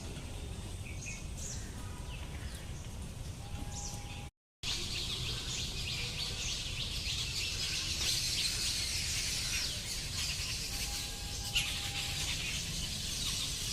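Birds chirping over a low steady rumble. The sound drops out briefly about four seconds in; after that the chirping is denser and busier.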